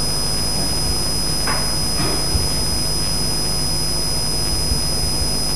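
Steady electrical mains hum and a high-pitched whine from the recording system, with a brief faint sound about one and a half seconds in and a light knock just after two seconds.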